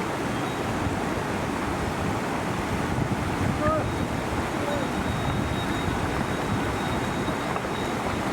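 Steady rushing water noise, even and unbroken, with a few faint short chirps in the middle.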